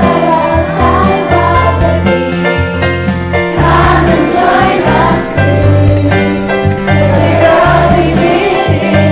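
A group of young voices singing together in unison over an accompaniment with a steady bass line.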